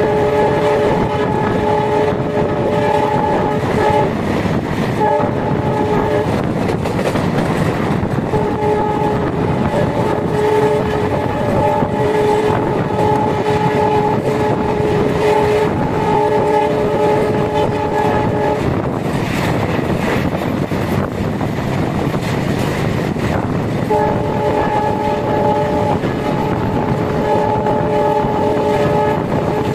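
ALCO WDM3D diesel locomotive's horn sounding in several long blasts, the longest about ten seconds, over the steady rumble and clatter of the passenger train running at speed, heard from an open coach door.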